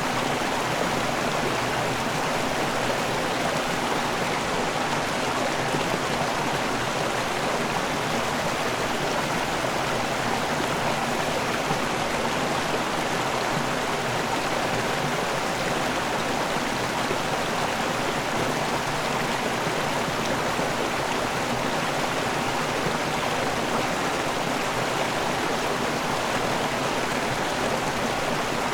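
River water pouring over a waterfall, a steady rushing with no changes.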